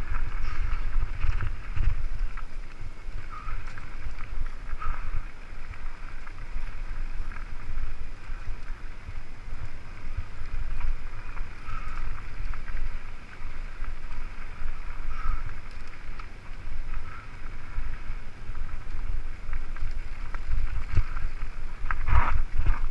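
Wind buffeting the microphone and the rattle and rumble of a mountain bike rolling fast down a rough dirt singletrack, uneven and gusting throughout.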